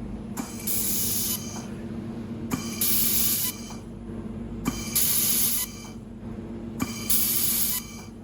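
Automatic XYZ laser welding machine cycling: four times, about every two seconds, a sharp click followed by roughly a second of loud hiss, over a steady low machine hum.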